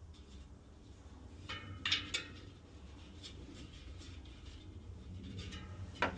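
Light metallic clicks and clinks from a spoke wrench and spokes as spokes are tightened on a bicycle wheel in a truing stand: a cluster of ringing clinks about two seconds in and a sharp click near the end, over a low steady hum.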